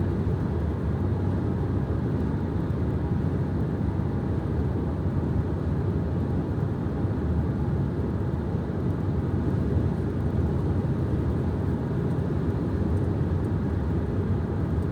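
Steady road and engine noise inside a car's cabin at highway speed: a low, even rumble of tyres and wind with no sudden changes.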